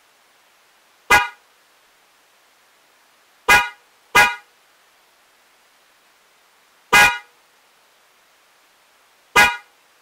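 DENSO J-Horn Hyper spiral electric car horns sounding in five short honks, two of them close together near the middle, each cutting off and fading quickly.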